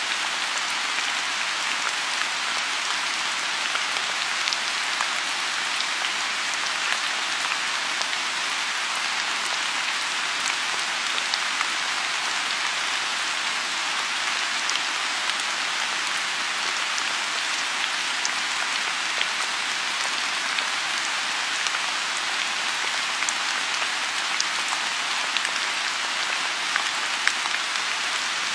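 Steady rain falling on a lotus pond: a continuous even hiss of rainfall with many small individual drop ticks scattered through it.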